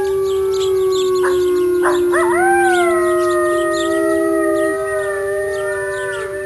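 A wolf pack chorus howling: several long howls at different pitches overlapping, one low howl held steady for most of the time while higher voices glide up and down and new ones join in about two seconds in.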